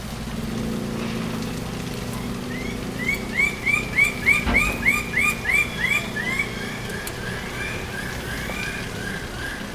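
A bird calling a quick series of short rising whistled notes, about three a second, loudest in the middle and then fading to fainter repeats. A low steady hum lies underneath in the first few seconds, and a single soft knock comes about halfway through.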